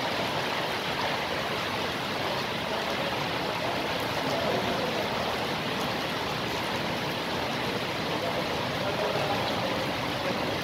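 Steady, even rushing noise with no distinct strikes or voices, like heavy rain or a strong air rush.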